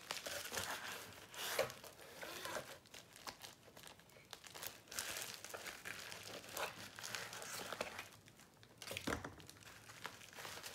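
A bubble-wrap pouch of art supplies crinkling and rustling as it is handled in a cardboard box, in irregular spells, with a sharper knock about nine seconds in.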